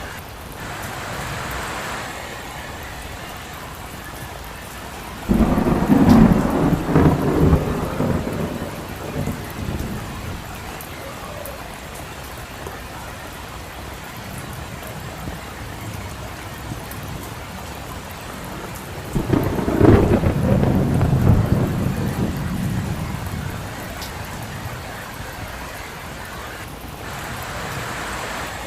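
Steady rain falling, with two rolls of thunder: one breaking suddenly about five seconds in and rumbling away over a few seconds, and a second about nineteen seconds in.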